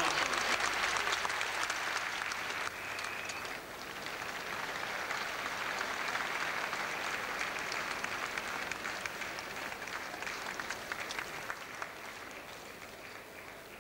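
Audience in an arena applauding with dense clapping, which dips briefly, swells again and then fades away near the end.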